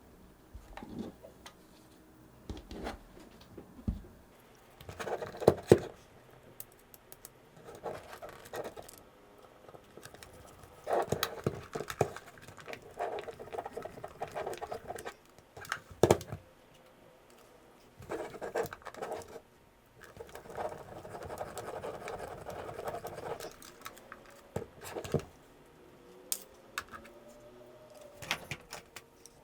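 Small parts of a Sony HVR-DR60 recorder being handled and fitted back together: irregular clicks and taps with stretches of scratching and rubbing, and a few sharper clicks among them.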